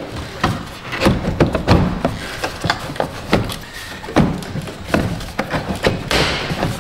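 Hard plastic air filter housing of a Ford Escape being worked loose and lifted out of the engine bay: a run of irregular knocks, taps and rubbing as the box shifts against surrounding parts.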